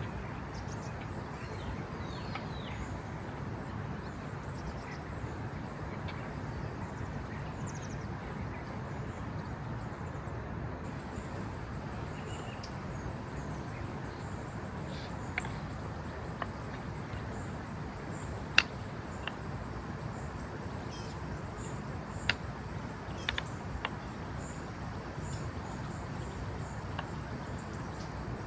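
Woodland ambience: a steady background rush with faint scattered bird calls, broken by a few sharp clicks, the loudest about two-thirds of the way through.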